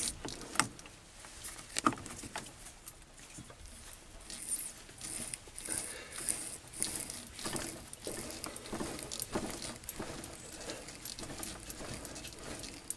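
A quarter-inch BSP tap being worked by hand into a block of acetal plastic on a mini lathe, the spindle turned by hand rather than under power. It makes irregular soft scraping with scattered light clicks.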